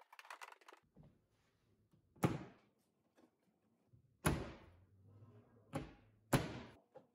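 Wooden mahogany-and-maple wall cabinet being hung on its wall fasteners: a quick run of light clicks at the start, then four sharp wooden knocks as the case is pushed flat against the wall.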